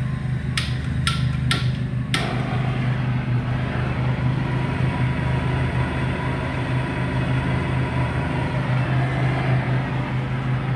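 Engine idling steadily, with four sharp clicks in the first two seconds.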